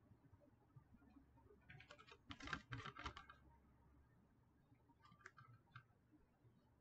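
A plastic DVD case handled and turned over in the hands: a quick cluster of light clicks about two to three seconds in, then a few fainter clicks near the end.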